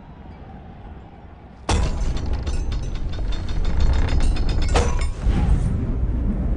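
Film sound effects of a wooden siege catapult being worked: a sudden start of rapid ratcheting clicks and wooden creaks over a heavy low rumble, then a sharp crack near the end as the arm is released and the stone ball is flung.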